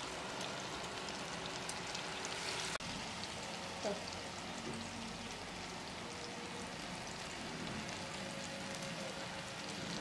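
Flattened banana halves frying in melted margarine in a nonstick pan: a steady sizzle with fine crackling.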